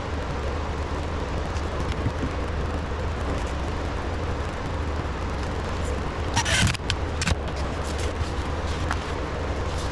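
Steady low hum and rush of machinery noise running in the shop. About six and a half seconds in comes a short burst of hissing from a trigger spray bottle, followed by a few light clicks.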